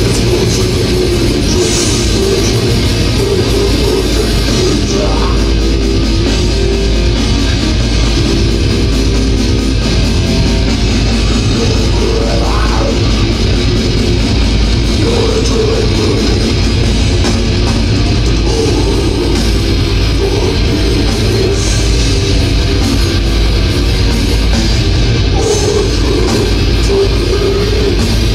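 A death metal band plays live: a dense, unbroken wall of distorted guitar and heavy low end. It is recorded loud and saturated on a mobile phone's microphone.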